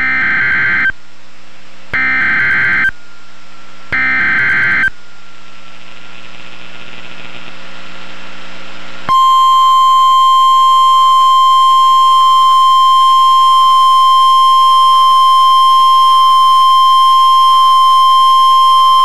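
Emergency Alert System tones on NOAA Weather Radio. First come three one-second screeches of SAME header data, a second apart. After a few seconds of faint hiss, the steady single-pitch 1050 Hz weather-radio warning alarm tone sounds for about ten seconds, announcing a tornado warning.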